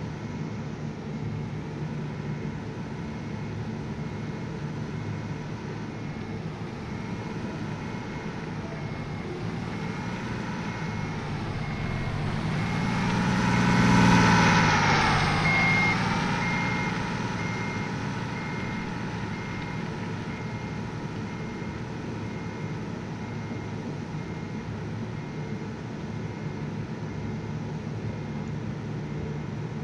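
Heavy truck's diesel engine running, growing louder to a peak about halfway through, its pitch rising and then falling as it comes close and moves away. A faint high beep repeats through it.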